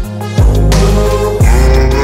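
Background music: a hip-hop/pop track between sung lines, with deep bass kicks that drop in pitch, about one a second, under held melodic tones.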